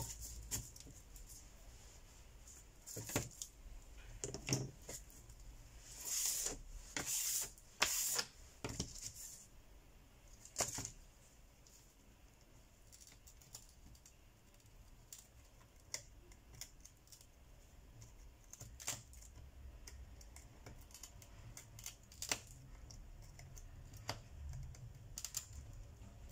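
Irregular clicks and short scratchy scrapes of a hand tool worked along the edge of a phone's frame, scraping away what is left of the old screen. A cluster of louder scrapes comes about six to nine seconds in.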